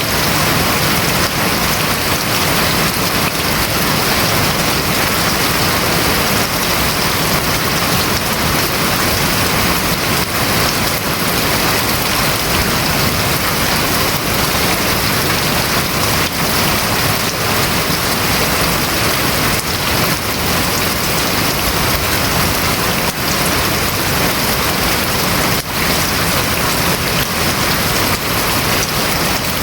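Rain falling on a house roof: a steady, dense hiss of drops with no letup.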